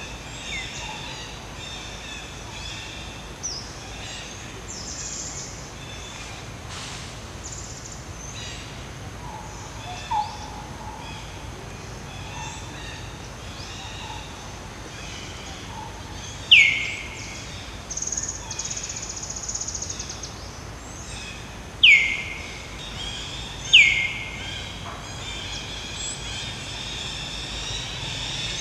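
Forest birdsong: a steady chorus of chirps, with three loud, sharp calls that each sweep down in pitch in the second half. A high steady buzz runs for about two seconds near the middle.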